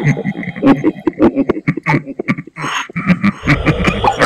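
Horror sound effect of a deep, heavy male 'ghost' voice, the genderuwo of Javanese folklore, grunting and growling in rapid stuttering pulses, about five a second. A deep rumble joins it near the end.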